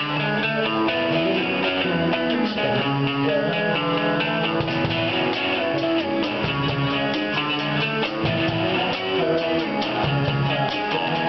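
Live band playing: electric guitar chords over a steady drum beat.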